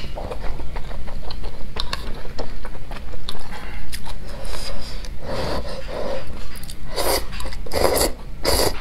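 A person slurping noodles and broth from a bowl, with three loud slurps close together near the end. Quieter chewing and small clicks of chopsticks against the bowl come in between.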